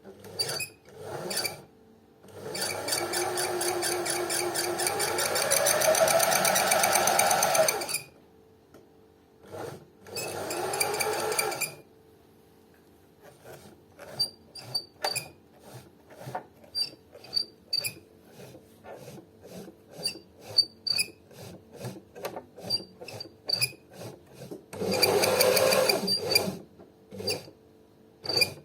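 New Home LR1622 sewing machine running in bursts: a run of several seconds that rises in pitch as it speeds up, a shorter run, then many short quick stabs and another run near the end. It gives off a whistle from the shuttle (hook) mechanism, as if something were unlubricated, though the machine has just been cleaned and oiled.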